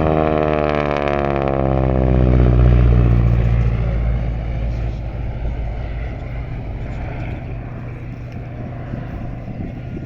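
North American T-6 Harvard's Pratt & Whitney R-1340 Wasp radial engine and propeller passing overhead in a flyby, the pitch sliding down as it goes by. It is loudest about two and a half seconds in, then fades to a distant drone.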